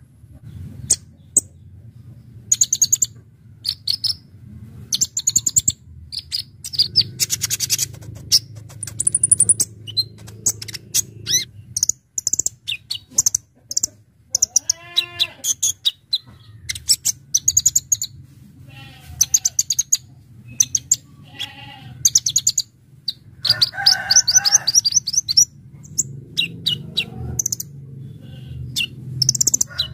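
Kolibri ninja (konin) sunbird singing a fast, sharp song of high chirps and rapid trills in quick bursts, over a steady low hum. About halfway through there is one lower, arching call.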